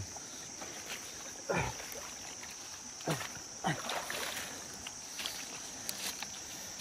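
Wading in a shallow stream: a few short splashes and gurgles of water around the legs, each sliding down in pitch, over a steady high insect drone.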